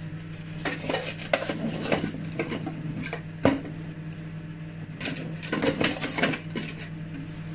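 Plastic measuring cup scooping and scraping in a plastic storage tub, with clattering handling noise in two spells and one sharp knock about three and a half seconds in.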